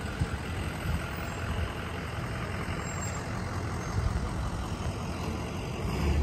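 Steady outdoor background noise with a low rumble; the motorized bicycle's engine is not running.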